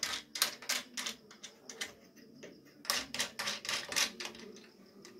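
Quick runs of light clicks and taps from hard parts being handled, most likely fingers working the amplifier's metal back panel and plastic binding-post terminals. One run comes at the start and a second about three seconds in, with a short lull between.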